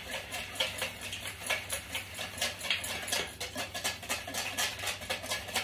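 Wire whisk beating Caesar salad dressing in a bowl, a quick run of scratchy strokes about four or five a second, as olive oil is whisked in to thin the dressing.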